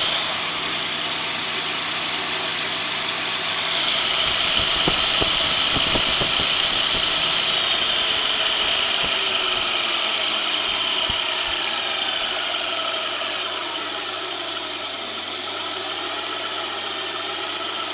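Kärcher pressure washer's electric motor spinning its opened-up pump, driving the three pistons through the swash plate, run at reduced speed on 60 volts. A steady mechanical run with a high whine and hiss; the whine falls in pitch and the sound eases a little about two-thirds of the way through.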